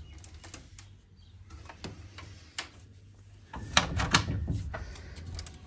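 A window's sliding mesh insect screen pushed open by hand: scattered clicks, then a short cluster of knocks and rattles of the frame about four seconds in.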